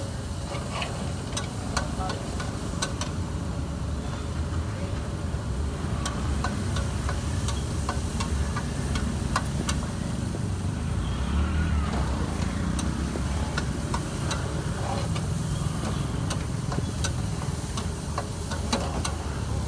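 Metal spatula and ladle scraping and clinking against a wok as meat is stir-fried, in irregular sharp clicks over a steady low rumble.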